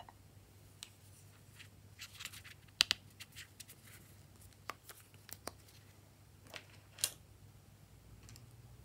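Clicks and snaps of small hard plastic parts being handled and pulled apart as a yellow plastic toy figurine's cap comes off. The loudest snaps come about three seconds in and again about seven seconds in.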